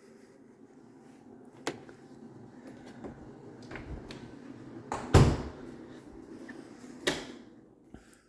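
An interior door being handled: a few sharp knocks and clicks, the loudest about five seconds in, over a low rumble of movement.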